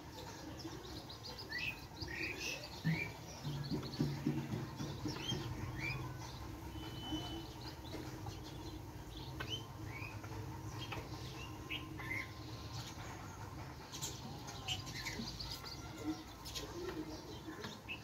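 Small birds chirping in short, scattered notes that rise and fall, several at a time and then spaced out. A faint low hum lies underneath for a few seconds about three seconds in.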